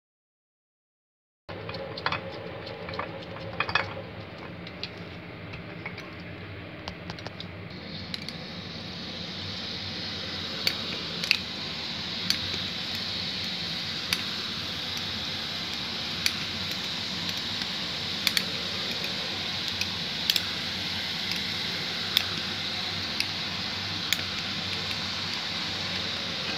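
Strands of chickpea-flour dough deep-frying in hot oil: a steady sizzle with sharp crackles and pops. It begins after a moment of silence with some clicking, and the sizzle swells louder about eight seconds in as more dough goes into the oil.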